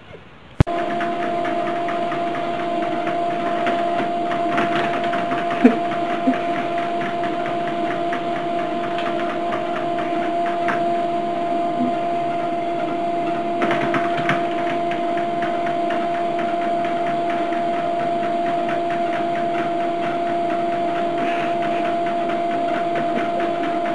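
A small machine starts abruptly about half a second in and then runs steadily, a constant hum with a fast rattle.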